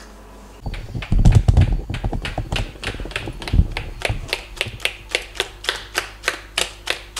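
A whisk beating pancake batter in a bowl, its wires tapping against the side about three times a second. Low rumbling and knocks come in the first few seconds before the tapping settles into its even rhythm.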